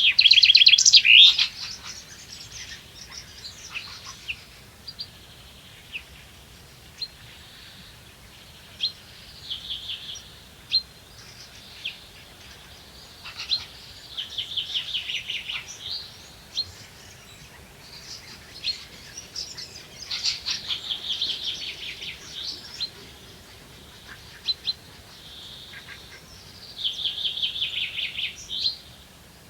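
Songbirds singing: a short, rapid trilled phrase repeated every several seconds, the loudest one right at the start, with scattered single chirps in between.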